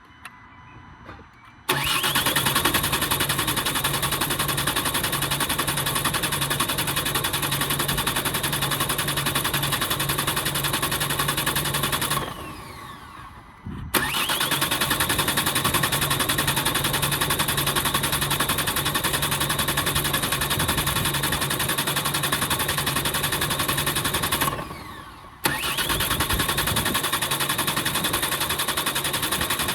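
2011 Ford Galaxy's 2.0 TDCi diesel engine being cranked by the starter motor without catching: two long attempts of about ten seconds each, then a third. The owner thinks a split fuel filter housing is letting air in, leaving the fuel pipes to the rail empty.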